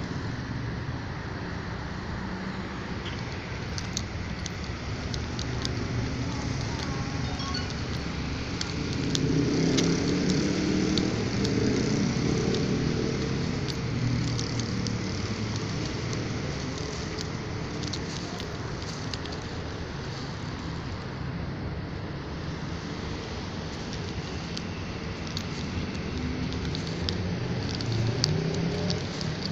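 Steady outdoor road-traffic noise, swelling as a louder vehicle passes about nine to fourteen seconds in and again briefly near the end. Light, irregular clicks and crunches run through it.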